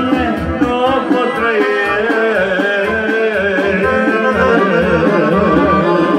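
Loud Romanian party song in an instrumental break: an ornamented, wavering melody over a steady beat.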